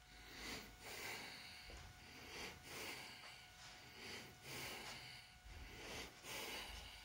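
Faint, rhythmic shuffling footsteps, about three every two seconds, of someone walking slowly across a carpeted floor.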